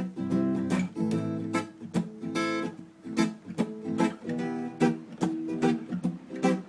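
Acoustic guitar strumming chords in a steady rhythm, the instrumental introduction of a song before the vocals come in.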